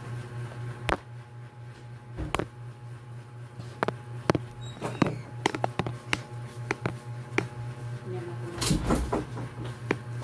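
Hand screwdriver driving screws into a metal mounting plate on a tattoo armrest: a string of sharp, irregular clicks and knocks of the tool and metal parts, with a louder clatter about nine seconds in, over a steady low hum.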